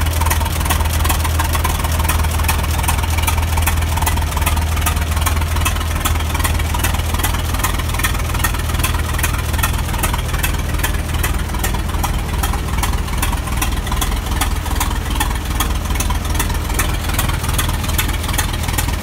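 1917 Fitch four-wheel-drive tractor's engine idling steadily, a low hum with an even beat of sharp clicks.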